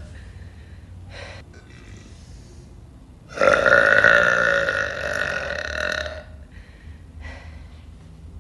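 A woman's deliberate, loud burp lasting about three seconds, starting about three seconds in and held at a fairly steady pitch before it fades out.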